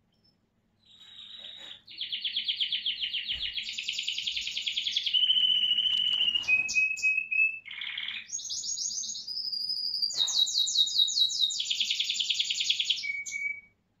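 American Singer canary singing one long song that starts about a second in and stops just before the end. It strings together rapid trills and held clear whistled notes, shifting between higher and lower pitches.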